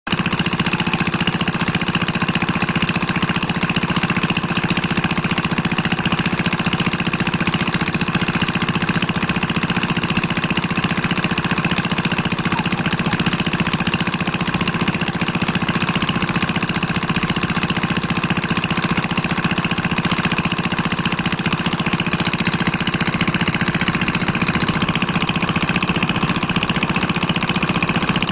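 An engine running steadily at constant speed, with a fast even pulse and no change in pitch.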